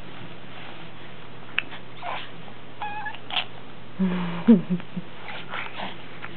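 A baby's babbling: scattered short vocal sounds, with a high-pitched squeal about three seconds in and a few lower, gliding coos a second or so later, with quiet gaps between.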